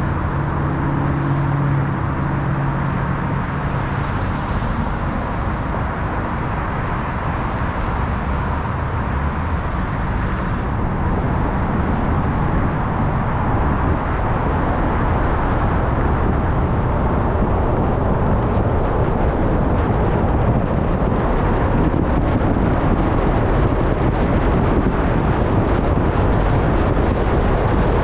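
Steady road noise of a car being driven: an even rumble of tyres and engine, with a low hum in the first few seconds, growing slightly louder toward the end.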